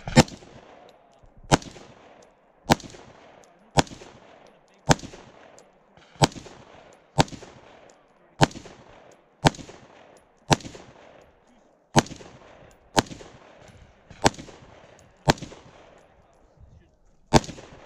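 Fifteen gunshots from one firearm at a steady pace of about one a second, each followed by a short echo, with a slightly longer pause before the last shot.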